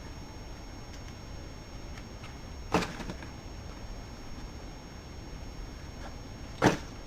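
Two sharp knocks about four seconds apart, the second slightly louder, over a steady low hiss.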